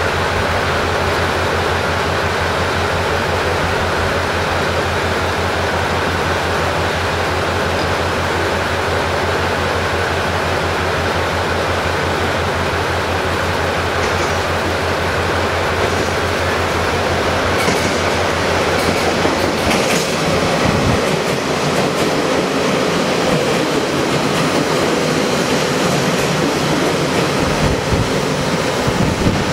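Limited express train running into the station over the rails, with a steady low hum and wheel noise; the hum drops away about two-thirds of the way through, while the rail noise carries on.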